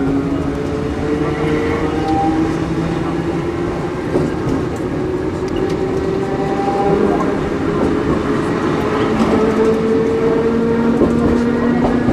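Kotoden's 1926-built retro electric railcars running, the traction motors' whine climbing slowly in pitch as the train gathers speed over the steady rumble of wheels on rail. A brief knock comes about four seconds in, and a fresh, lower whine begins to climb near nine seconds.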